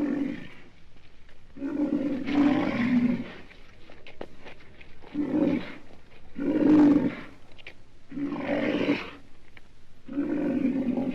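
Rhinoceros calling: a series of about six pitched calls, each lasting around a second, with short pauses between them.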